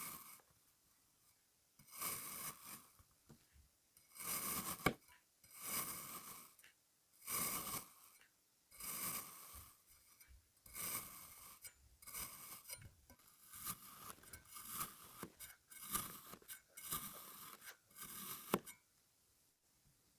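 Kinetic sand being cut: about a dozen short, crunchy scraping strokes, roughly one every second and a half, with a sharp click about five seconds in and another near the end.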